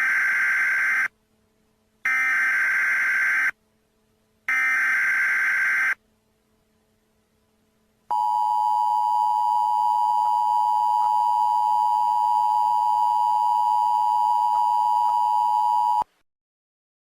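Emergency Alert System SAME header: three short screeches of digital data tones, each about a second and a half long with about a second of silence between. Then the two-tone EAS attention signal holds steady for about eight seconds and cuts off suddenly. The sequence announces the start of a new emergency alert.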